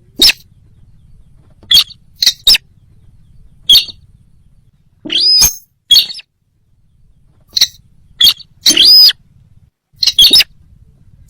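Sintar bird calls: a series of short, sharp, loud calls at irregular intervals, about a dozen in all, two of them drawn out into a rising-then-falling whistled note, over a faint low hum.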